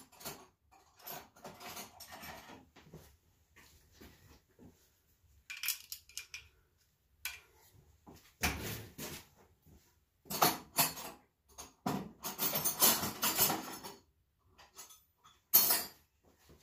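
Metal tools and engine parts being handled, clinking and clattering in irregular bursts, busiest in the second half.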